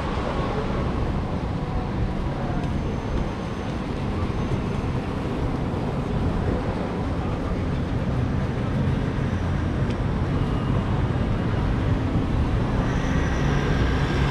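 City street traffic: a steady rumble of cars passing close by, growing a little louder near the end as a bus's engine comes near, with a faint high whine.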